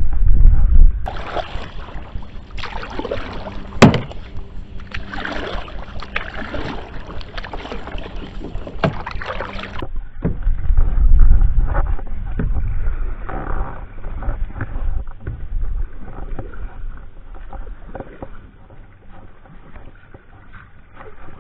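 Paddling a plastic fishing kayak: paddle strokes in the water and knocks against the hull, with one sharp knock about four seconds in. Low rumbles on the microphone are loudest at the start and again about eleven seconds in.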